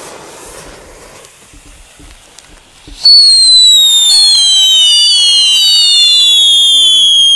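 Several Scream Maxi F1 howling fireworks lit together: a few seconds of fuse fizzing, then about three seconds in a loud howling starts, several whistles overlapping, each falling in pitch, the others joining one after another.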